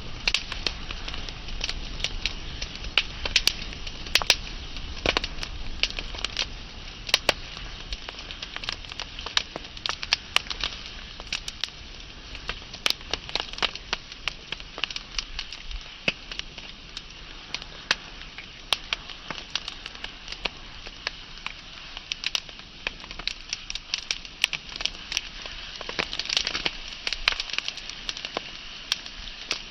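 Wood fire burning with frequent irregular sharp crackles and pops over a steady hiss of flames.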